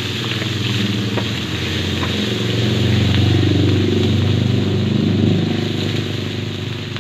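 Onions sizzling in hot oil in a wok as a wooden spatula stirs them. Under the sizzle, a motor vehicle's engine swells and fades, loudest about three to five seconds in.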